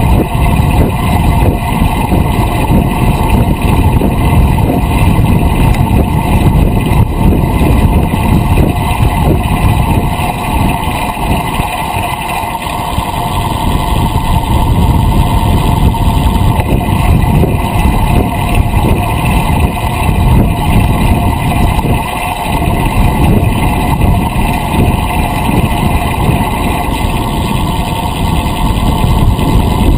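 Wind rushing over a GoPro's microphone mounted on a moving road bicycle, with tyre noise on the asphalt: a loud, unsteady noise that eases briefly twice.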